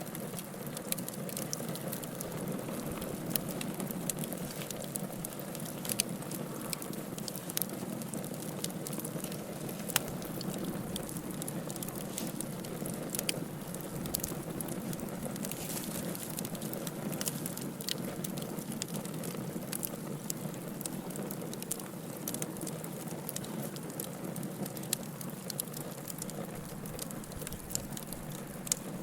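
Campfire burning, the wood crackling steadily with frequent sharp pops, one louder pop about ten seconds in.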